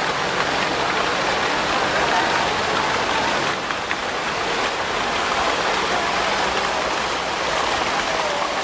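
Water jets of the Fontaine Saint-Michel falling and splashing steadily into the stone basin below.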